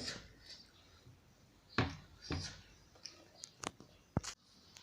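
Scattered light clicks and knocks, about half a dozen, from handling the removed washing machine door and its door-lock parts during repair.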